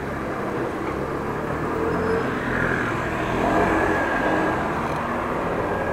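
Steady city street noise with passing traffic, heard from a moving bicycle.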